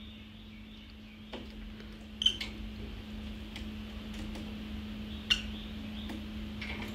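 A small caged parrot gives two short, high chirps about three seconds apart, with faint ticks from the wire cage as a cat paws at it, over a steady low hum.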